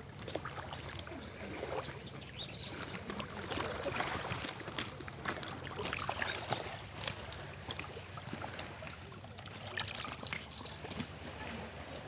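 Small waves lapping and gurgling against the stones at the edge of a calm sea, with many small splashes and trickles.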